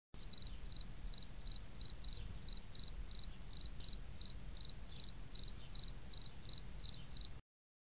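Cricket chirping in a steady run of short high pulses, about three a second, over a faint low hum; it cuts off suddenly near the end.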